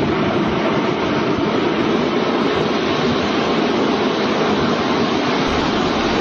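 Steady rushing roar of raging floodwater, loud and unbroken.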